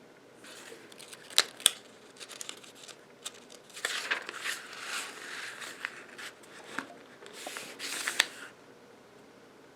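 Paper rustling as a printed manual is handled and its pages turned, with a few sharp snaps of paper in between.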